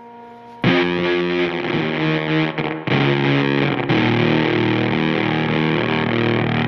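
Distorted electric guitar, a Fender Stratocaster through an Egnater Tweaker tube amp and effects pedals, playing chords and riffs. A held chord is fading out when a loud chord is struck about half a second in; the playing breaks off twice briefly, then another strong chord near four seconds rings on with further notes over it.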